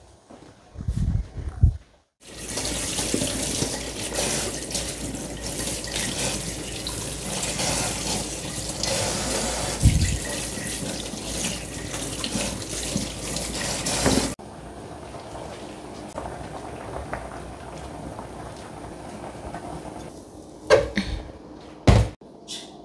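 Kitchen tap running hard into a sink, turned on about two seconds in and shut off sharply after about twelve seconds. A softer steady hiss follows, with a couple of sharp knocks near the end.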